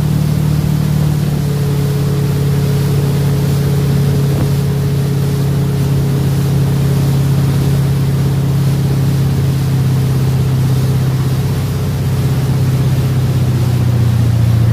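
Tow boat's engine running steadily at towing speed, its hum sinking slowly in pitch, over the rush of water and wake.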